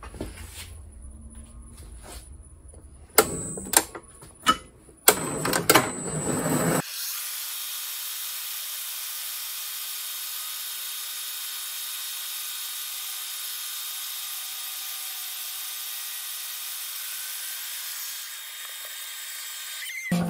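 A few sharp knocks and clunks, then from about seven seconds in a milling machine's 2.5 inch, 45 degree shell mill face-milling a desert ironwood handle block: a steady whirring cut with a high hiss.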